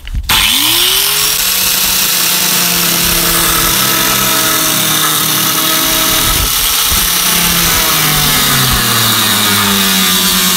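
Angle grinder winding up with a rising whine, then running steadily as its disc cuts into the metal skin of a BMW 7 Series (E65/E66) car door.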